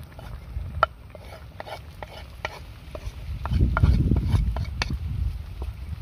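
Wooden spatula clicking and scraping against a plate as chopped spring onion and chili are pushed into a wok of soup, then stirring in the wok. There is a louder low rumble about halfway through.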